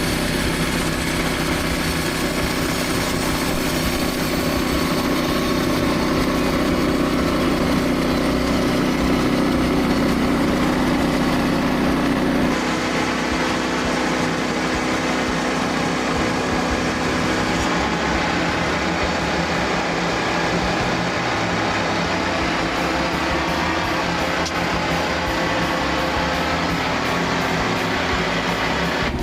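Small gasoline engine of a Frontier portable bandsaw sawmill running steadily. Its sound shifts abruptly about twelve seconds in and again near eighteen seconds.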